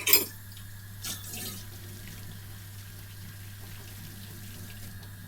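Water running steadily, over a constant low hum; a short louder sound right at the start.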